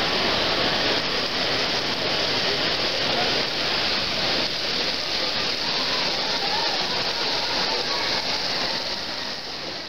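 Steady crowd hubbub in a busy exhibition hall: an even wash of many voices and hall noise with no single event standing out, easing a little near the end.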